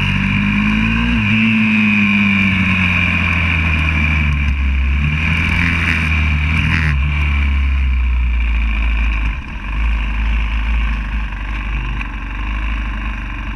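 Onboard sound of a YCF 125cc four-stroke pit bike engine running on the throttle, its note rising and falling through the corners. About two-thirds of the way through it drops off and runs quieter as the bike slows into the pits.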